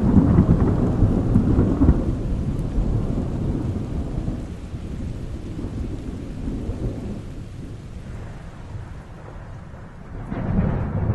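Deep rolling rumble of thunder, loud at first and dying away over several seconds, then swelling again about ten and a half seconds in.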